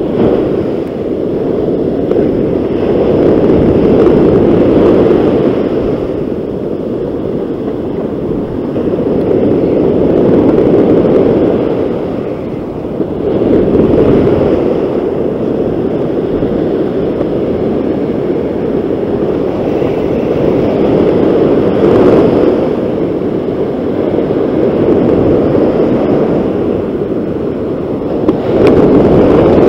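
Ocean surf breaking and washing up a sandy beach, with wind buffeting the microphone: a loud rushing noise that swells and eases every few seconds.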